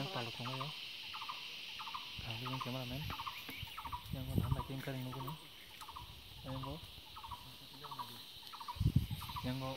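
Insect chorus in the field: a steady high buzz with a short chirp repeating about twice a second. People's voices come and go underneath.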